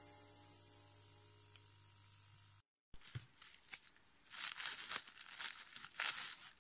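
Plastic cling film and masking tape being peeled off and crumpled by hand: a run of crinkling and tearing bursts starting about three seconds in, after the faint tail of background music stops.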